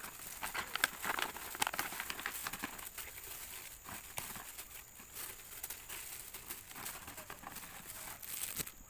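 Clear plastic gloves and a plastic stand-up pouch crinkling as handfuls of crisp fried instant noodles are packed in, with the brittle noodles crackling and clicking against each other in irregular bursts.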